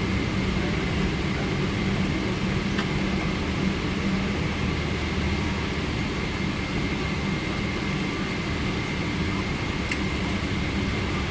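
Steady low rumble of a Boeing 777 airliner heard from inside the passenger cabin, with a constant hum and a faint high tone under it. Two faint clicks come about three seconds in and near the end.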